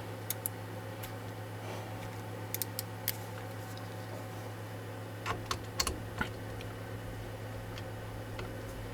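Scattered small clicks and taps of a T25 Torx wrench being handled at the router's spindle clamp, coming in a few short clusters. A steady low hum runs underneath.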